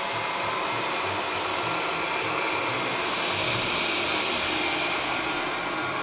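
ROIDMI EVA robot vacuum-mop running with a steady whir of its suction fan as it sets off from its self-cleaning dock to resume cleaning with a freshly rinsed mop.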